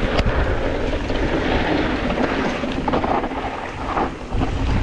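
Wind buffeting the microphone over the rumble of a mountain bike riding a rough trail, with scattered clicks and knocks from the bike and ground.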